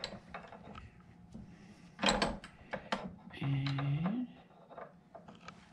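A few sharp metal clicks and clunks from a steel bench vise being snugged up by its sliding T-handle, about two and three seconds in. A short hummed 'mm' from a man comes a little after the middle.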